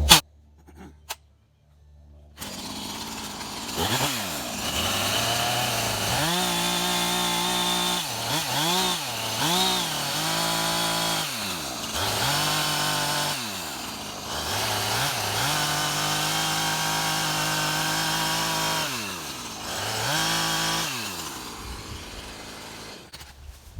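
Chainsaw engine starting up after a short quiet spell and revving repeatedly, its pitch rising and dropping back again and again, with a few stretches held at high revs for several seconds at a time.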